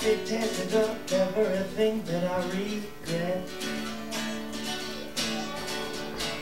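Live acoustic guitar being strummed with a man singing along to it.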